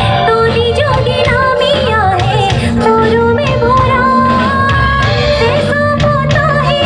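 A woman singing live into a microphone, her melody wavering with vibrato, over a band's accompaniment with a steady low beat, amplified through the stage sound system.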